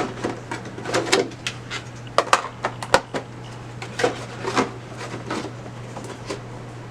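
Irregular clicks, taps and rubbing of hard plastic as an ASTRO A50 wireless headset and its docking station are handled, over a steady low hum.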